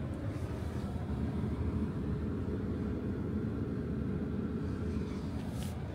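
A convoy of vehicles driving past in a steady low rumble of engines.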